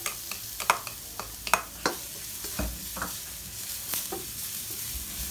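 Chopped ginger and garlic sizzling in a nonstick wok, with a spatula stirring and scraping and knocking sharply against the pan several times.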